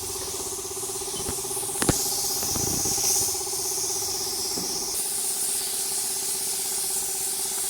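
Paint spray gun hissing steadily while spraying the three-wheeler, over a steady machine hum; a couple of sharp clicks about two seconds in.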